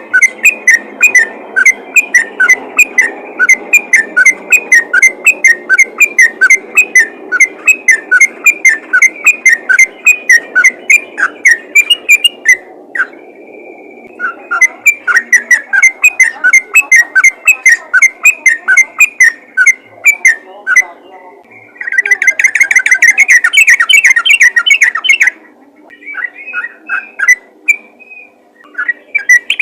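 Yellow-vented bulbul (trucukan) in rapid-fire "ropel" calling song: loud whistled notes repeated about four to five times a second. The notes break off briefly near the middle and pack into a dense, faster run near the end. This is a calling song used to draw other bulbuls in.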